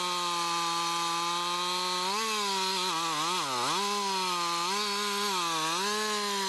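Two-stroke chainsaw running at high revs while cutting into the tree trunk. Its pitch holds steady for about two seconds, then dips and recovers several times as the chain bogs under load in the wood, dropping lowest about three and a half seconds in.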